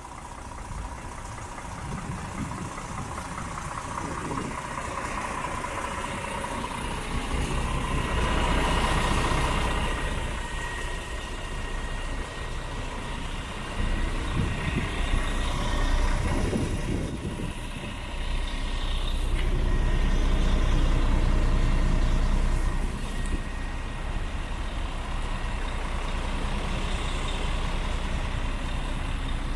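Scania R490's 13-litre straight-six diesel idling with a steady low rumble, swelling louder twice in the middle.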